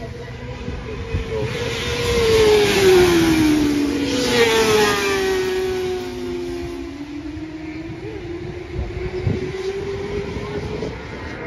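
Racing motorcycles passing at speed on a park road circuit, each engine note dropping in pitch as the bike goes by. The loudest pass comes about three seconds in and a second bike follows just after, then a quieter engine note slowly rises as another bike approaches.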